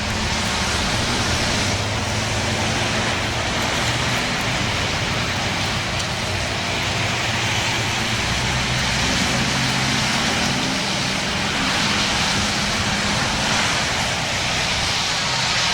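Federal Signal STH-10 rotating fire siren sounding the attack signal, heard as a loud, dense, distorted roar that swells and fades every few seconds as the rotating head sweeps past.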